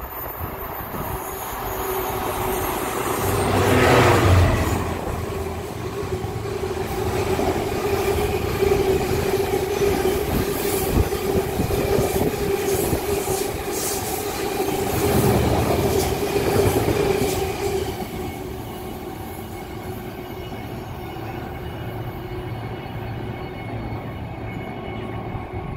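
Class 66 two-stroke V12 diesel locomotive passing through, loudest about four seconds in. A long train of loaded ballast wagons follows, rumbling past with a steady tone and wheel clicks over the rail joints. The sound dies down after about eighteen seconds as the train recedes.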